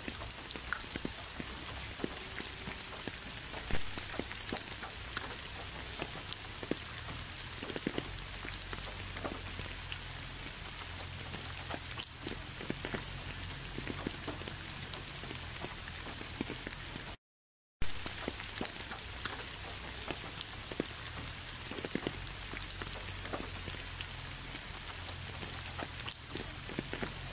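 Steady rain, an even hiss dotted with many separate drop taps. It cuts out to silence for about half a second a little past the middle, then resumes.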